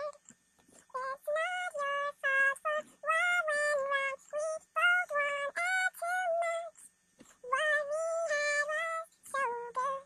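Girl's singing voice pitched up to a chipmunk sound, singing short, mostly unintelligible phrases with gaps between them and no accompaniment.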